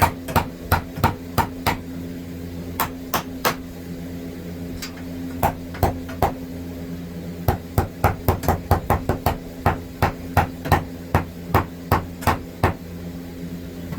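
Hammer blows, likely driving nails into 2x4 framing, in several runs of quick regular strikes, about three to four a second, with short pauses between runs.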